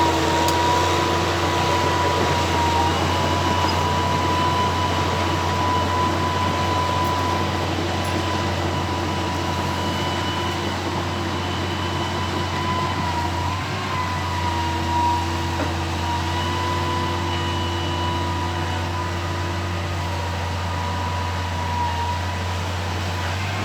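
Excavator engine running steadily, with a steady high whine over a low hum.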